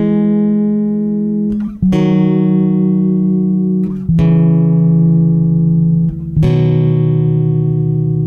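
Background music: sustained instrumental chords, a new one struck about every two seconds.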